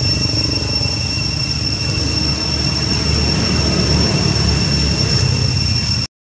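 Steady outdoor background noise: a low rumble with an even high-pitched drone above it, cutting off abruptly about six seconds in.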